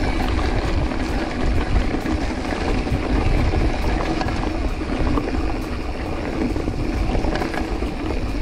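Wind buffeting the microphone of a camera on a moving mountain bike, a steady deep rumble, mixed with the rattle of the bike and tyres on a dirt trail.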